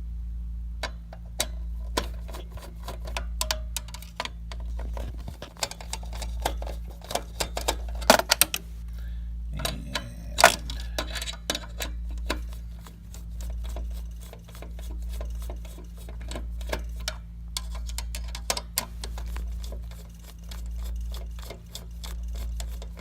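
Screwdriver backing out the four mounting screws of an AMD Wraith stock CPU cooler: many small irregular metal clicks and ticks, busiest around the middle, over a steady low hum.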